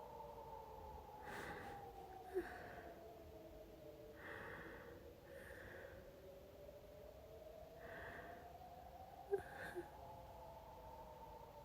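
Blizzard wind howling, a faint whistle that slowly rises and falls in pitch, over a woman's laboured breathing in and out every second or two. A few soft clicks come through.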